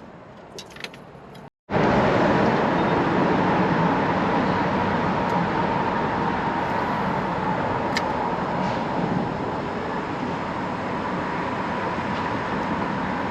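A boat motor running steadily, with a constant whine over a rushing noise, starting abruptly about a second and a half in after a few faint clicks.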